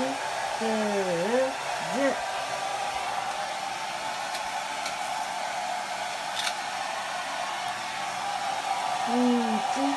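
Handheld hair dryer running steadily, with a constant airy whir. A voice makes brief sliding sounds over it in the first couple of seconds and again near the end.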